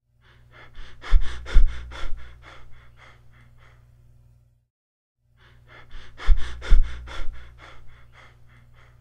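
Cheyne-Stokes breathing: a run of quick breaths that grows louder and then gradually fades, heard twice with a short silent pause between, the waxing-and-waning pattern with apnea that is a sign of cardiac damage.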